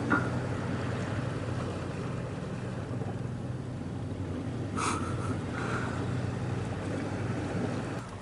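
Steady outdoor noise of wind and sea at a rocky shore, with a faint low hum under it and a short higher-pitched sound about five seconds in.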